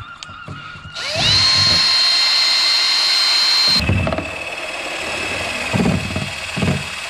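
Cordless drill spinning a homemade paint-stirrer rod in a plastic can, mixing engine oil with about 10% petrol. About a second in, the motor spins up with a rising whine and runs at a steady high pitch. From about four seconds it holds a lower steady whine, with a few dull knocks.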